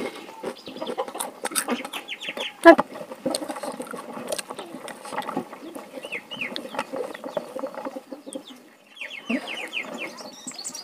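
Chickens clucking in short runs of quick calls, a few times over, with small clicks and scrapes of fingers on a steel plate. There is one sharp knock a little under three seconds in.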